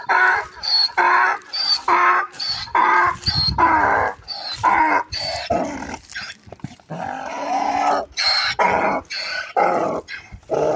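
Donkey braying: a long run of rhythmic hee-haw calls, about one a second, without pause.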